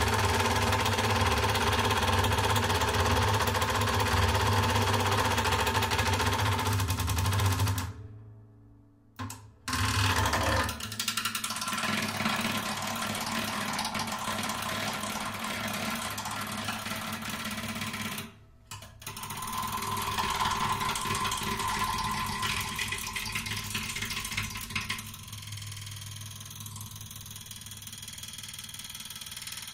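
Acoustic guitar lying on its back, its strings and body set buzzing and rattling by mechanical agitation: a dense, steady buzzing drone with a strong low hum. It cuts out abruptly about eight seconds in and comes back around ten seconds with a changed texture. It drops out briefly near eighteen seconds and grows thinner and quieter after about twenty-five seconds.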